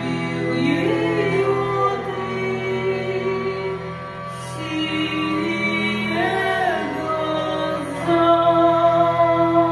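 A woman's voice singing long, gliding, held notes over the continuous drone of a hurdy-gurdy, with a louder sustained note near the end.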